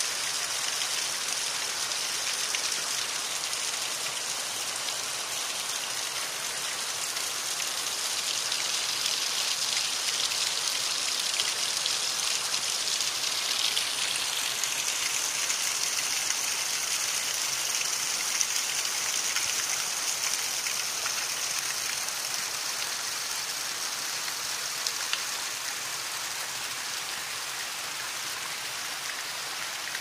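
Small waterfall splashing over rocks into a rocky forest stream: a steady hiss of running water.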